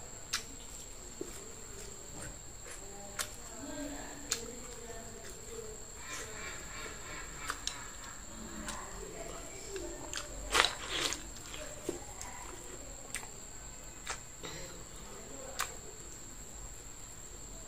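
Someone eating cooked green beans with chopsticks: chewing and mouth sounds with scattered sharp clicks of chopsticks against a ceramic bowl, the loudest cluster a little past halfway. A steady thin high whine runs underneath.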